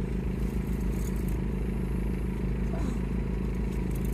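An engine running steadily with an even, low pulsing hum.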